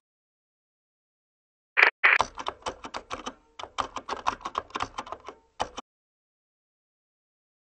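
Typing on a computer keyboard. Two heavier keystrokes come about two seconds in, then a quick run of keystrokes, about seven a second, that stops just before six seconds in.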